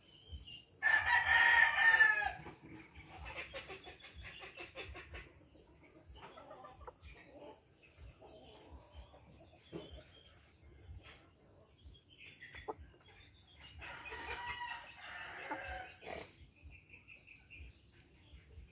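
Heritage chickens clucking as they feed. One gives a loud call about a second in, lasting about a second and a half, and there is more clucking near the end. Small birds chirp faintly in the background.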